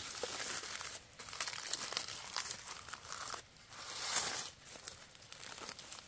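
Dry leaf litter crackling and rustling as hands stuff a bundle of fresh leaves into a rat burrow's opening to plug it, in irregular bursts that grow fainter toward the end.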